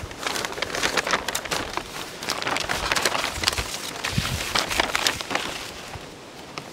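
Thin plastic foil crinkling and rustling in a dense run of crackles as it is handled and spread over an open wooden beehive.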